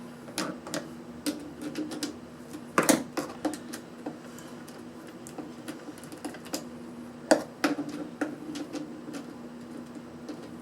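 Irregular light clicks and taps of tools and small parts on the plastic case of a portable power pack being taken apart, with louder knocks about three seconds in and again about seven seconds in. A faint steady hum runs underneath.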